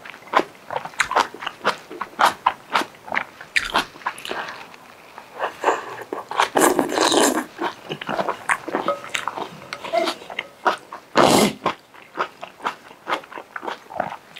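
Close-up eating of luosifen rice noodles: a steady run of wet chewing clicks, with a longer louder slurp about halfway through and another a little past three-quarters of the way.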